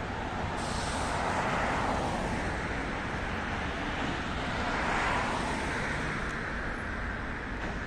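Road traffic on a busy city street: steady traffic noise with two vehicles passing close by. Their tyre and engine noise swells and fades, peaking about a second and a half in and again about five seconds in.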